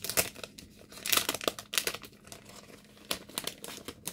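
Clear plastic bag crinkling in a series of irregular crackles as a card is handled and slid back into it, loudest a little after a second in.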